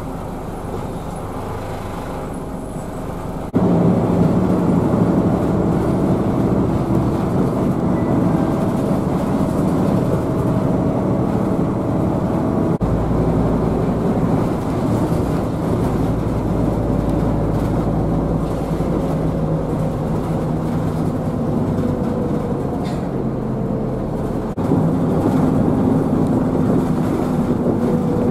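Route bus heard from inside its cabin while driving: engine and drivetrain running with a steady rumble and faint drifting whine, getting clearly louder about three seconds in.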